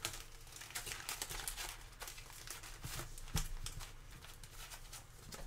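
Foil trading-card packs crinkling and rustling as plastic-gloved hands handle and shuffle them, with irregular small crackles and clicks.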